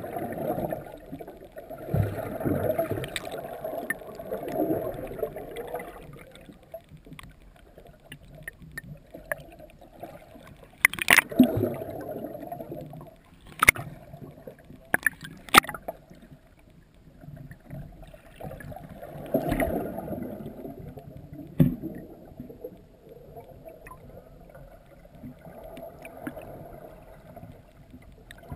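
Muffled underwater sloshing and gurgling of sea water heard through a submerged camera, surging and easing. Several sharp knocks come in the middle.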